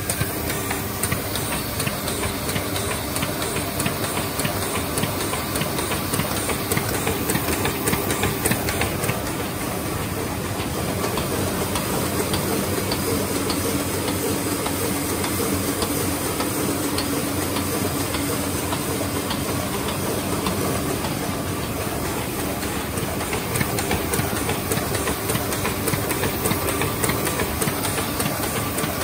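Heidelberg SM 52-2 two-unit sheet-fed offset press running, a steady hiss with a fast mechanical clatter as sheets are fed through.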